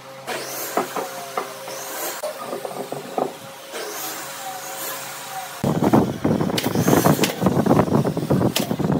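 Pine boards knocking and scraping as they are handled and fitted into a wooden frame on a workbench. Scattered light knocks and short squeaks come first, then a loud, dense run of knocks and clatter from about five and a half seconds in.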